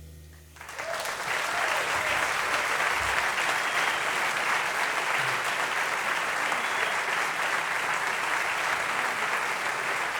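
Audience applauding steadily, starting about half a second in as piano music fades out.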